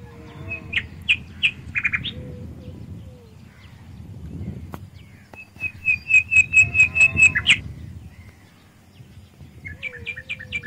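A bird chirping in short, high repeated notes: a few scattered chirps, then a rapid run of about a dozen notes in the middle, and another quick cluster near the end, over a low steady background rumble.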